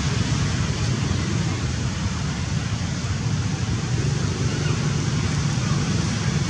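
Steady outdoor background noise: a low rumble with an even hiss over it, with no distinct sound standing out.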